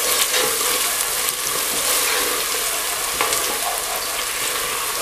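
Chopped onions with chilli powder and turmeric sizzling in hot oil in a pressure-cooker pot, a steady frying hiss, while a wooden spatula stirs them and now and then scrapes or taps against the pot.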